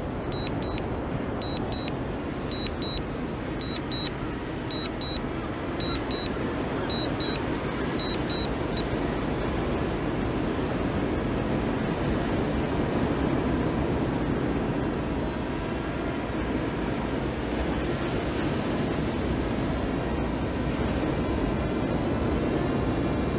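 Double beeps from the DJI Mini 2's remote controller, repeating about once a second during auto-landing, stopping about nine seconds in. A steady rushing noise lies under them throughout.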